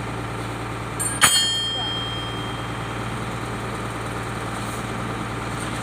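Heavy diesel engine idling steadily, with one sharp metallic clang about a second in that rings on briefly, as of steel struck on steel.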